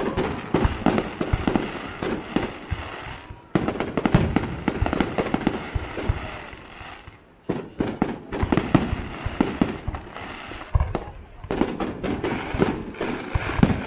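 Fireworks display: a dense barrage of aerial shell bursts, many quick bangs and crackles overlapping. The barrage thins out twice, about three and a half and seven and a half seconds in, and each time a fresh volley comes in loud.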